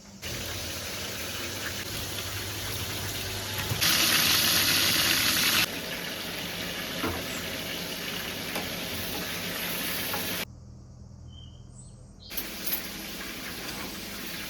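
Steady rushing noise like running water, heard in several short edited segments, one of them louder and brighter.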